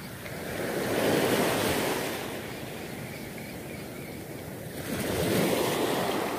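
Small waves breaking and washing up a sand beach, the surf swelling about a second in and again near the end.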